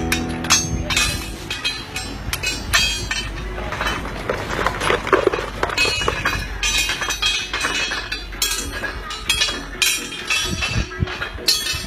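Irregular sharp knocks and clinks over a steady low rumble.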